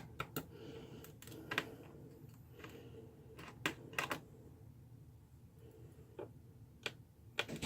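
A screwdriver clicking and tapping against the screws and plastic bottom case of a Chromebook as the screws are undone: a handful of faint, irregularly spaced clicks.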